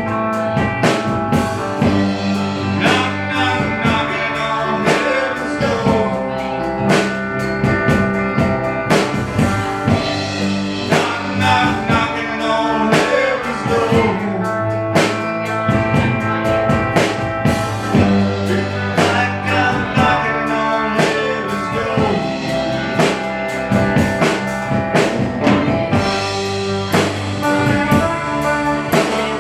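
Live country-rock band playing a slow song: drum kit keeping a regular beat under electric guitars and bass guitar, with a lead line that bends up and down in pitch.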